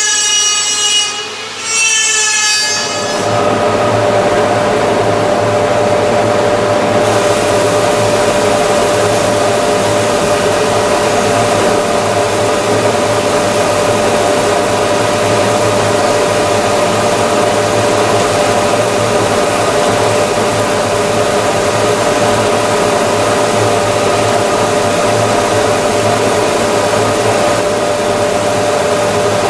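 Round-rod sanding machine running with a curved wooden chair rod fed through its sanding head: a steady abrasive hiss over a constant motor hum, starting about three seconds in.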